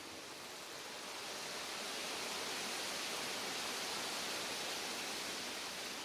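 Even outdoor hiss of ambient noise, swelling about a second in and easing near the end.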